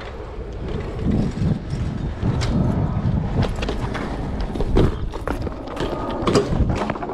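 A BMX bike ridden on a concrete skatepark: tyres rumbling over the concrete, the rear hub ratcheting and the bike's parts rattling, with sharp knocks. The loudest clatter comes about six and a half seconds in, as the bike, let go by its rider, hits the concrete.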